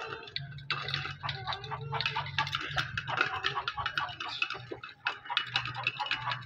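Chickens pecking feed from a steel bowl: quick, irregular ticks of beaks on metal and concrete, with a few soft clucks, over a steady low hum.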